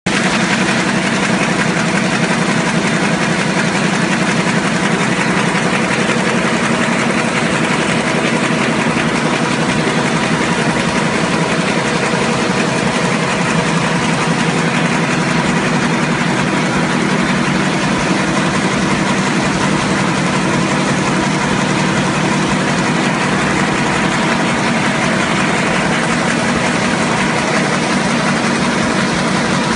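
Pressline Prima web offset printing press running: a loud, unbroken machine din of several steady hums over a dense, fast clatter.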